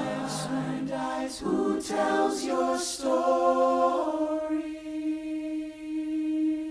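Choir singing a slow phrase in harmony with several sharp 's' sounds in the words, then holding one long chord from about four seconds in.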